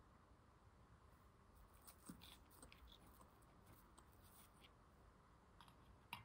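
Near silence, with faint small clicks and rustles of fingers picking a sugar candy out of a paper box, then a light click near the end as it is set on a ceramic plate.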